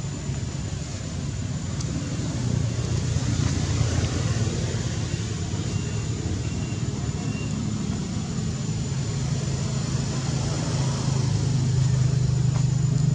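Steady low rumble of a motor vehicle engine, growing louder near the end, under a faint high steady whine.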